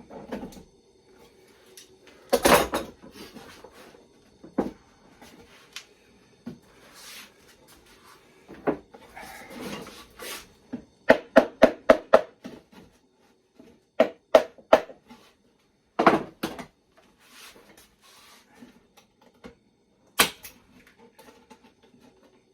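Wooden clunks and knocks as half-inch plywood box parts and a clamp are handled. About 11 s in, a quick run of six sharp shots from a pneumatic staple gun driving 1-inch staples, then three more around 14 s and single ones later.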